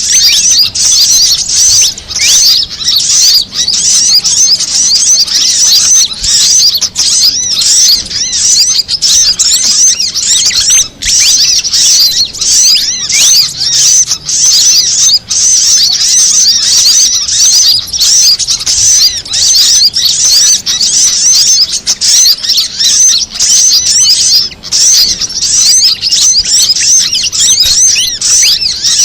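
Bird-lure recording of small-bird calls, a fantail's call layered with sunbird and female sogon calls: dense, unbroken, high-pitched chirping and twittering in rapid overlapping notes, played to draw wild small birds in.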